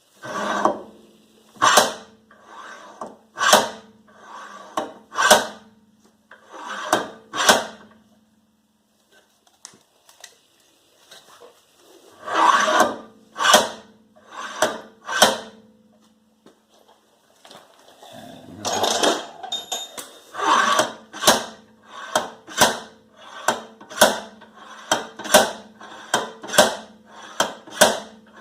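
Ten-pound sledgehammer blows on a seized rear wheel hub, each with a short metallic ring. They come in runs: a steady series, a pause, a few more, then a faster run of blows about one and a half a second near the end. The hub is stuck fast and not yet budging.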